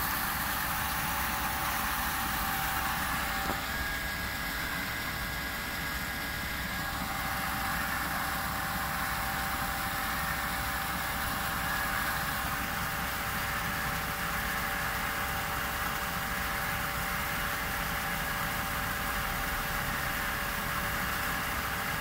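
Artificial garden waterfall: three sheet-water spillways pouring steadily down a stone-clad wall into the basin below, with a steady hum underneath.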